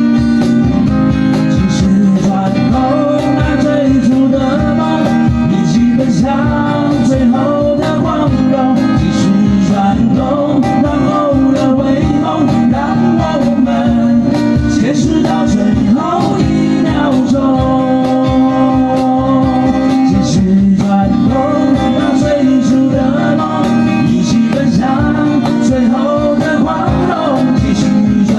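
Live acoustic band performing a song: two acoustic guitars strummed over a steady cajon beat, with a male voice singing the melody.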